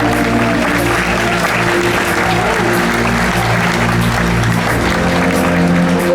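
An audience applauding over the show's music, which holds sustained notes underneath.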